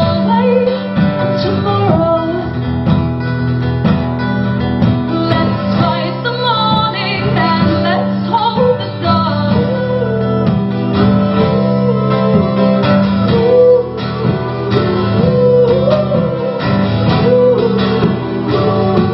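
Live music: a guitar-led song played on strummed and plucked guitars, with a female voice singing over it.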